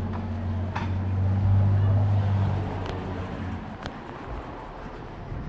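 Street traffic: a motor vehicle's engine drone swells to its loudest about two seconds in and then fades as it goes by. A few faint clicks sound over it.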